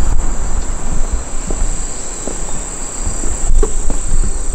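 Steady, high-pitched insect drone, with a low rumble underneath.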